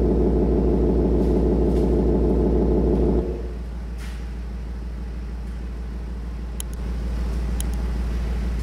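Mercedes G400d diesel idling through an active exhaust sound system: a loud, pulsing exhaust note drops abruptly to a quieter idle about three seconds in as the sound mode is switched on the phone app, then grows slightly louder near the end.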